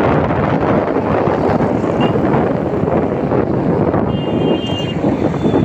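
Wind buffeting the microphone over the steady noise of road traffic, with a brief high-pitched tone, like a vehicle horn, about four seconds in.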